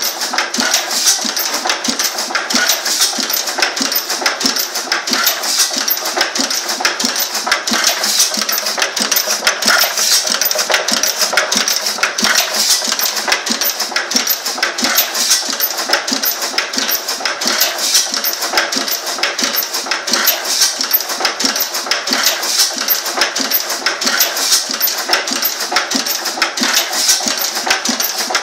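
Benz horizontal single-cylinder stationary engine running steadily, a fast, even rhythm of sharp mechanical beats and clatter.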